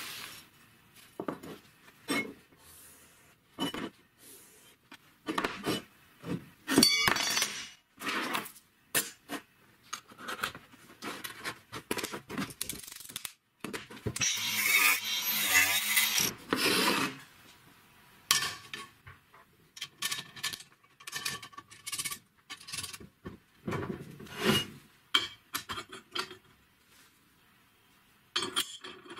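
Steel workpieces (square tube, roller chain, sprockets) knocking, clinking and scraping as they are handled on a wooden workbench, in many short irregular bursts. About halfway through there is a louder stretch of abrasive scraping lasting about three seconds.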